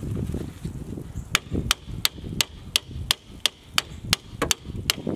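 Steady hammer blows, about three a second, starting about a second in: hammering on the old Ford Maverick's rear brake to break it loose.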